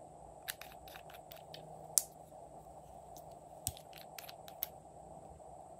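Small glass nail polish bottles and their plastic screw caps clicking and tapping as they are handled and unscrewed, in scattered sharp clicks with the loudest about two seconds in, over a faint steady background hum.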